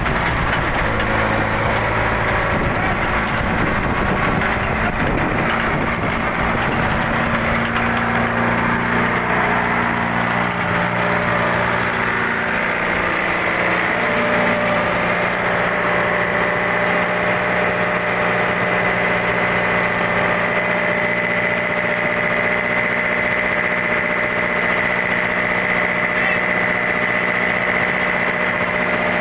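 Fishing boat's engine running steadily, its tone changing slightly about halfway through.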